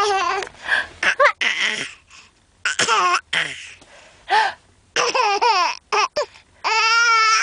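A baby laughing in short high-pitched squeals and breathy bursts, a laugh that at times sounds like a cough, with a longer held squeal near the end.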